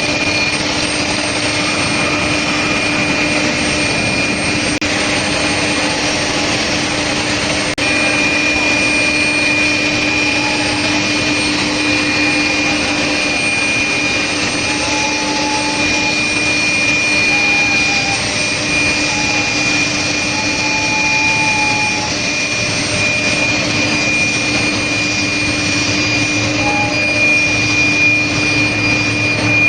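Steel plate induction hardening machine running: a steady rushing noise with a steady hum and a high-pitched whine. The whine drops out shortly after the start and cuts back in suddenly about eight seconds in.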